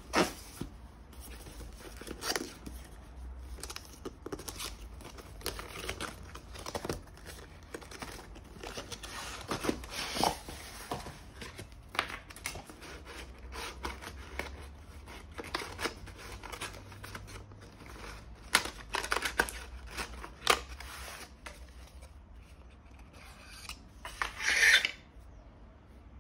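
Cardboard packaging being handled and opened by hand: the inner box slid out and its folded tray pulled apart, with scattered taps, scrapes and paper rustles, and a longer, louder rustle near the end.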